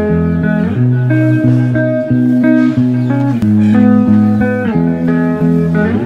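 Background music: a plucked guitar melody over sustained bass notes.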